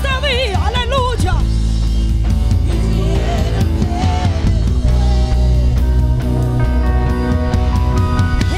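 Live worship band playing: drum kit, electric guitar, bass and keyboard. Women's voices sing with a wide vibrato for about the first second, then the band carries on mostly instrumentally, with a short sung phrase near the middle.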